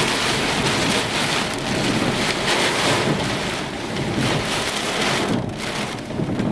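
Wind-driven rain pelting a stopped vehicle in a severe thunderstorm, heard from inside, in surging gusts that ease a little about five seconds in.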